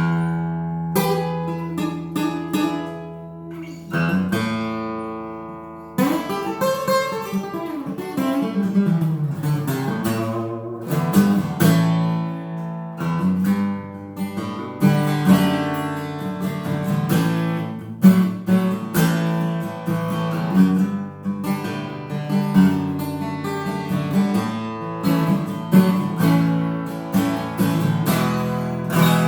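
Crafter bubinga acoustic guitar with Elixir .012 steel strings, played solo: plucked notes and chords ringing out one after another.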